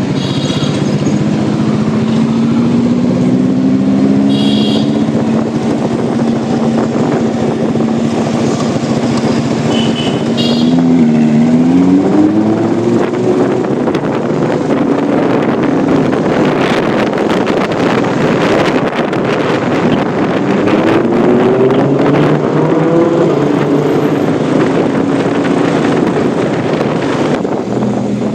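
Lamborghini Huracán Evo Spyder's V10 running, its pitch dipping and climbing again about eleven seconds in and rising once more later, with a stretch of rapid crackling in the second half. Three short high beeps, like horns, come in the first ten seconds.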